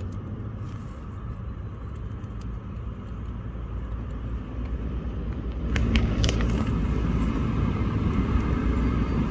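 Steady low outdoor background rumble that grows louder about six seconds in, with a few faint clicks.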